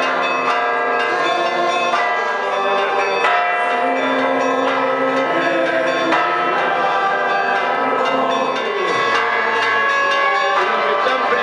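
Church bells pealing, many quick strikes overlapping into a continuous ringing.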